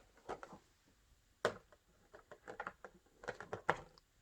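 Scattered light clicks and knocks of plastic being handled as the body shell of a 1/10 RC truck is taken off, with one sharper knock about a second and a half in.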